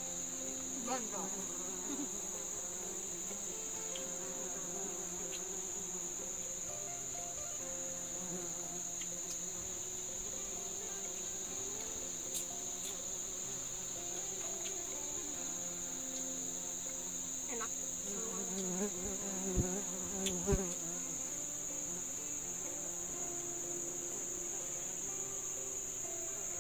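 A steady, high-pitched insect chorus, with a few soft knocks about two-thirds of the way through.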